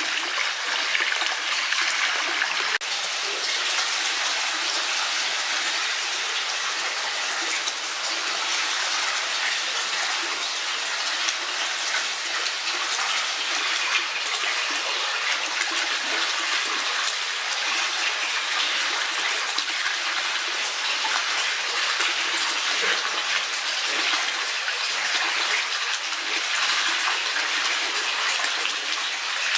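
Steady rush of running water, an even hiss that never breaks or changes.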